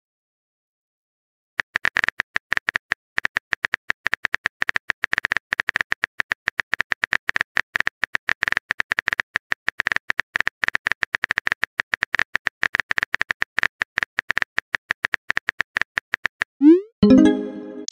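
Rapid, irregular phone-keyboard tap clicks as a message is typed, followed near the end by a short rising whoosh and chime: the messaging app's message-sent sound.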